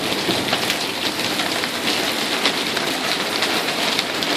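Thunderstorm rain falling steadily, with many single drops splashing close by.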